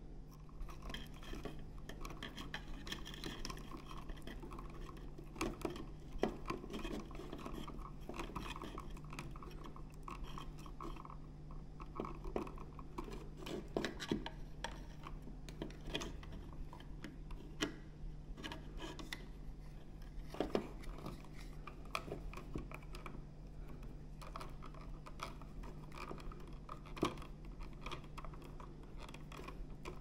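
Irregular small clicks, taps and rustles of hands handling plastic wire nuts, stiff insulated wires and wall switches, over a steady low hum.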